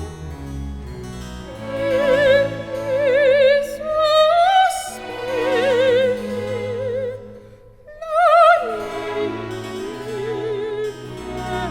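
Background music: a high operatic voice singing long notes with strong vibrato over an instrumental accompaniment, briefly dropping out just before a new, higher note about two-thirds of the way through.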